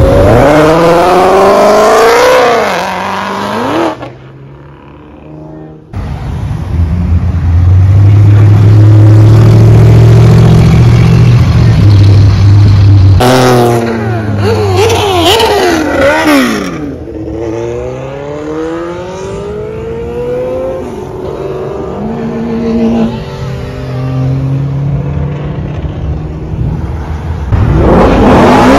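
Performance cars accelerating hard past, engines revving with pitch climbing and dropping through gear changes. Sound dips briefly about four seconds in, then a deep steady engine rumble, followed by more rising and falling revs.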